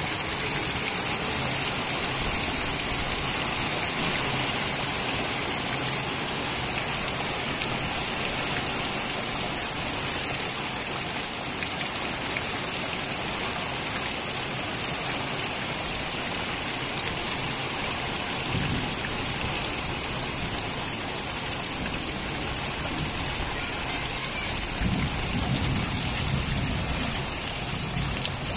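Heavy rain pouring onto a concrete rooftop and ledges: a dense, steady hiss of falling rain, with a brief low rumble near the end.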